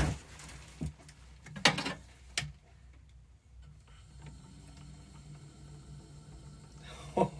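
Lathe switched on: a few light knocks, then about four seconds in its motor starts and spins the four-jaw chuck up to a low speed. It then runs quietly and steadily with a faint high whine.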